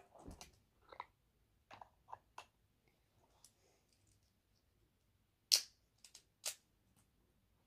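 Small plastic clicks and taps from handling a Thomas & Friends Minis toy train and fitting it onto a plastic toy piece. A few faint scattered ones, then two louder, sharper clicks about a second apart late on.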